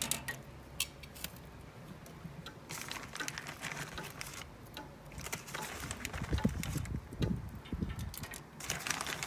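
Scattered light clicks and clinks of metal tongs against a kamado grill's stainless-steel grate as stone fruit is shifted around, with a low rumble about six seconds in.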